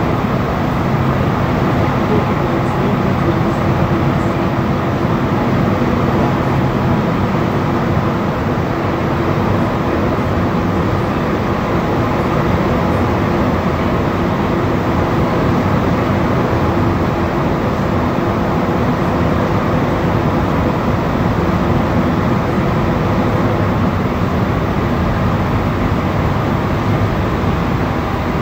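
Interior running noise of a Montréal Metro Azur (MPM-10) rubber-tyred train cruising at steady speed through a tunnel, heard inside the car: an even rumble and rush with a faint steady hum, unchanging throughout.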